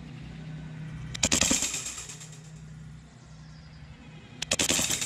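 Airsoft pistol fired at homemade popper targets: two quick strings of sharp cracks and clatter, about three seconds apart.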